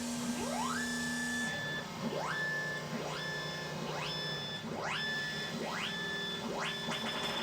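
Synthetic-sounding tones repeating about once a second, each sliding quickly up in pitch and then holding steady, with a low steady hum under the first second and a half.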